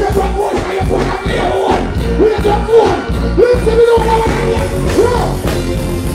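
Live reggae band playing loudly through a concert PA with heavy bass, a singer chanting over it into a microphone.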